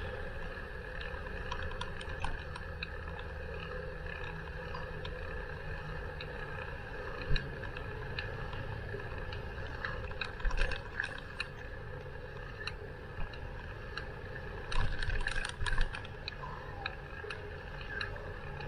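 Bicycle riding along with a steady rumble of rolling and wind. A sharp knock comes about seven seconds in, and there are clusters of rattling clicks from the bike going over bumps about ten seconds in and again around fifteen seconds in.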